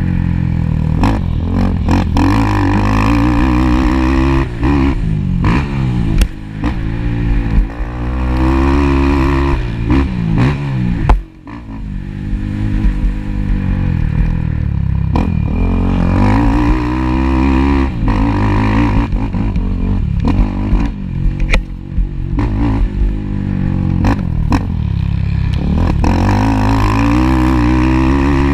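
Motocross ATV engine revving hard, its pitch climbing and falling again and again as the throttle opens and shuts through the gears, with a rattling clatter. A sharp, loud knock about eleven seconds in is followed by a brief lull before the engine picks up again.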